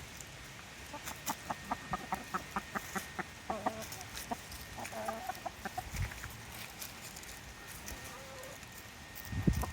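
Backyard hens pecking at steamed crab shells: a quick run of sharp beak clicks on shell, about four or five a second, with a few short soft clucks. A dull thump comes near the end.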